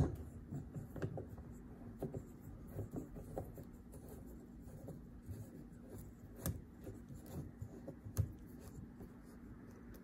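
Hand rubbing and fiddling with a plastic hose fitting and the protective plastic film on a washing machine's top panel: faint rustling and scraping, with a few light clicks.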